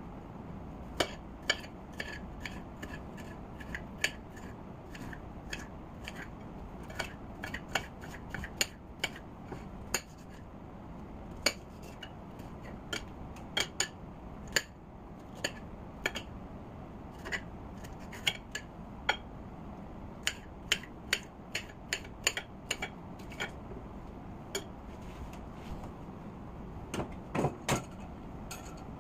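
A kitchen knife chopping green bell pepper on a plate, its blade clicking sharply and irregularly against the plate. A few heavier knocks come near the end.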